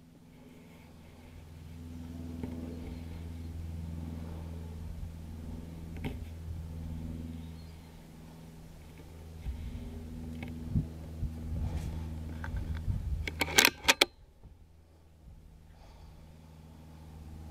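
A steady low hum runs underneath. About thirteen seconds in, a quick cluster of sharp cracks, the loudest sound, marks a shot from the scoped rifle.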